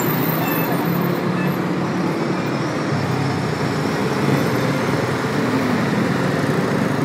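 Heavy city traffic on a multi-lane avenue: a steady mix of engine hum and tyre noise from passing cars and larger vehicles, with no single horn or event standing out.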